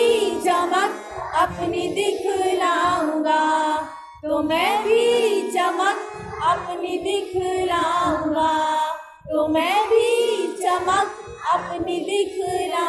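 An Urdu children's poem sung to a melody, in three phrases of about four to five seconds each with short breaks between them.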